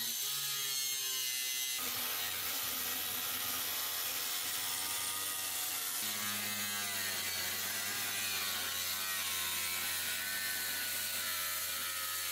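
Angle grinder with a cut-off wheel running and cutting through the metal side gussets of a VTAC wall plenum, throwing sparks. Its motor tone wavers under load and its pitch shifts a couple of times.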